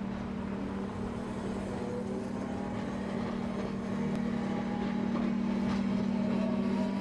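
Street traffic with trams running past: a steady low hum with a few sharp clicks about four to six seconds in.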